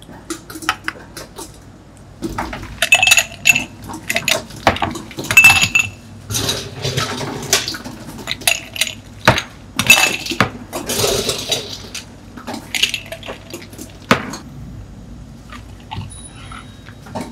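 Ice cubes scooped out with an ice scoop and tipped into tumblers, clattering and clinking in a quick series of knocks with short rattling bursts as each scoopful lands. It eases off after about fourteen seconds.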